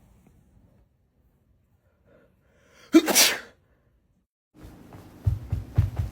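A single loud sneeze about three seconds in, after a quiet stretch. Music with drums comes in near the end, building up.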